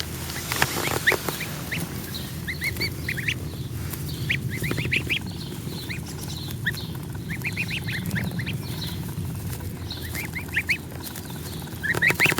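Goslings peeping: short, high, rising chirps that come in quick runs, with a few brief rustles or clicks about half a second in and near the end.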